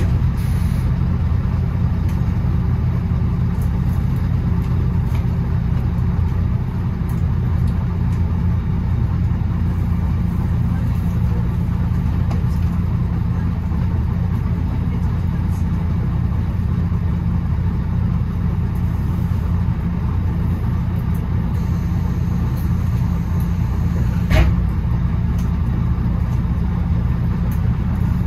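Bus engine running steadily with a low hum and road noise, with a single sharp knock near the end.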